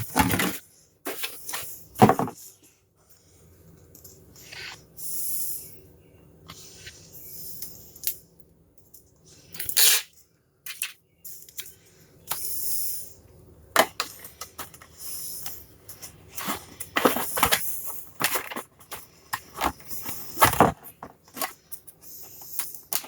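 Handling sounds of adhesive Velcro strips being worked onto a plastic RC truck body: brief rustling and tearing hisses, with scattered clicks and taps between them.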